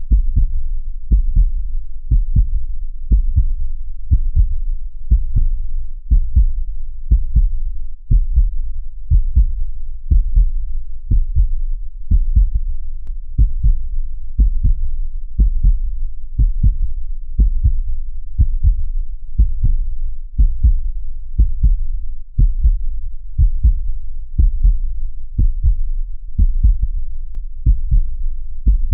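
Heartbeat sound, a steady rhythm of low, muffled double thumps (lub-dub) repeating evenly without a break.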